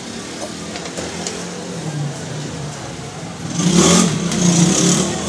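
An engine running steadily, then revving loudly for about two seconds near the end.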